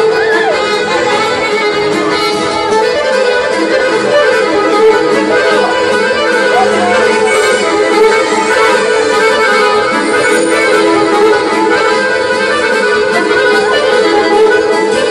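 Live accordion and electronic keyboard playing traditional folk dance music, loud and continuous.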